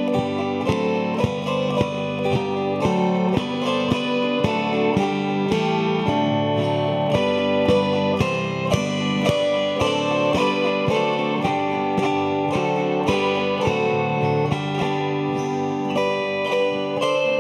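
An ensemble of four chromaharps (autoharp-type zithers) strumming chords together in a hymn arrangement. The strums fall steadily, about two a second, and each chord rings on under the next.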